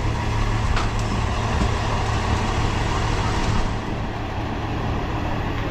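A bus engine running with a steady low hum, dropping slightly in level a little past halfway.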